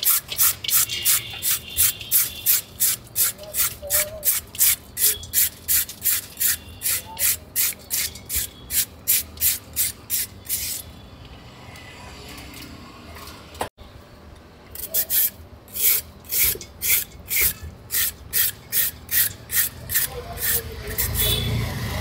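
Rhythmic rasping strokes of a hand-held julienne peeler drawn along a raw cucumber, shaving it into thin noodle strands, about three strokes a second. The strokes stop for a few seconds about halfway through, then start again.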